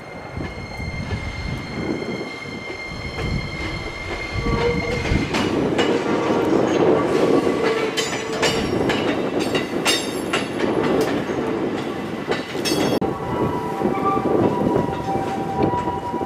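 E257-series electric limited-express train running past on a depot test run. Wheels click over rail joints amid running noise, which is loudest from about four to thirteen seconds in. A steady ringing tone sets in near the end.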